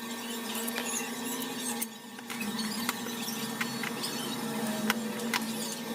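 A steady low hum with a few light clicks and taps scattered through it, from small tools working on a smartphone during disassembly.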